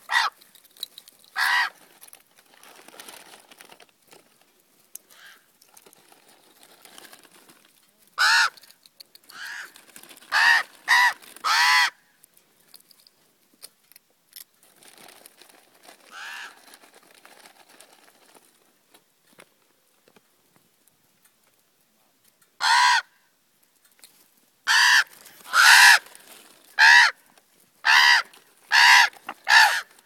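Common ravens calling with harsh caws while squabbling on the ground. The calls come singly and in quick runs of five or six, about one a second.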